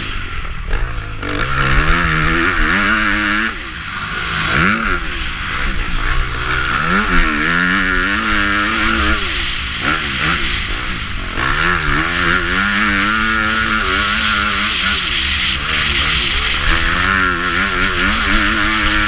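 450cc motocross bike engine racing on the track, its pitch climbing under throttle and dropping back again and again through shifts and corners, with steady wind rumble on the microphone.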